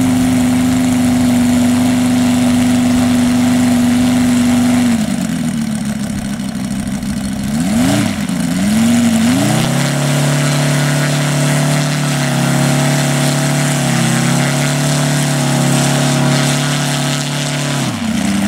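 The Bombus H80 engine of a 33%-scale Sopwith Pup model aircraft running on the ground. It holds a steady higher speed, is throttled back about five seconds in, is blipped up and down twice about halfway, then settles at a lower steady speed before dropping again near the end.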